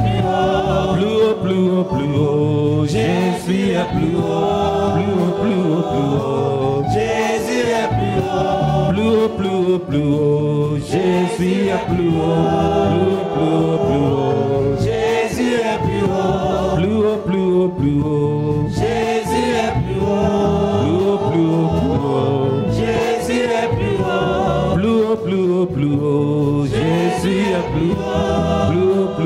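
Gospel worship music: a group of voices singing a chorus together over steady musical backing.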